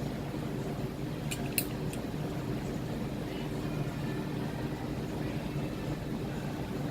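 Steady low machine hum, with a few light clicks about a second and a half in.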